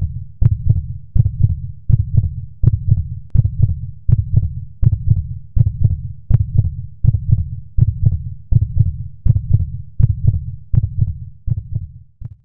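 A deep, regular thumping beat like a heartbeat, about two thumps a second, cutting off abruptly just before the end.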